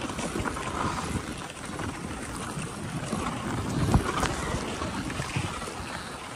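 Dog sled moving over a packed-snow trail: a steady hiss of the runners on snow, with wind on the microphone and a sharp knock about four seconds in as the sled jolts.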